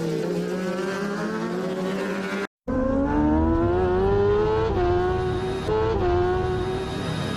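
Racing motorcycle engine heard from on board at high speed. The note eases down and holds, breaks off for a moment about two and a half seconds in, then climbs hard with two quick upshifts, each a sudden drop in pitch.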